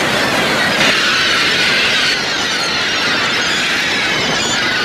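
A large flock of gulls calling all at once: a dense chorus of overlapping high-pitched cries, shifting abruptly about one and two seconds in.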